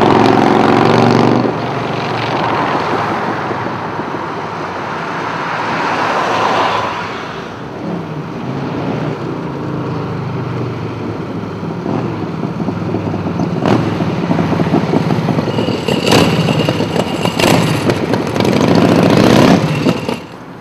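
Custom chopper motorcycle engine on the road: loud close by at the start, fading as the bike pulls away, then growing louder again as it rides back toward and past. Several sharp cracks come in the second half, and the sound cuts off shortly before the end.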